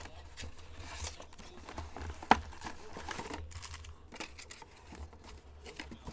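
Plastic wrapping on a trading-card mega box and its packs crinkling and tearing as it is ripped open, with irregular rustles and one sharp snap about two seconds in.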